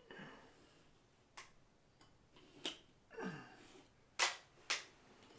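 A metal pancake electrical box being pushed and worked into a hole in a drywall ceiling: a few sharp light clicks, two of them about half a second apart near the end, with soft scraping in between.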